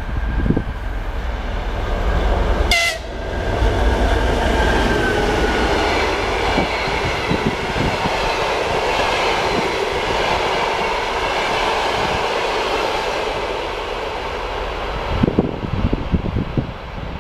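TEP70 diesel locomotive passing at speed, its engine rumbling heavily, with a brief shrill sound about three seconds in; then the passenger coaches roll past as a dense rushing, rattling noise that fades near the end, leaving a few wheel clicks.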